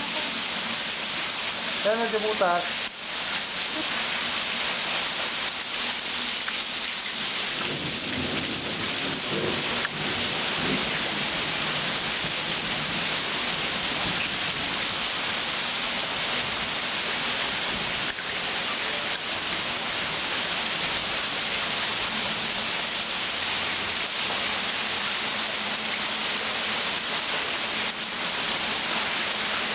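Heavy rain pouring steadily onto flood water pooled over a driveway, a dense even hiss. There is a low rumble between about eight and eleven seconds in.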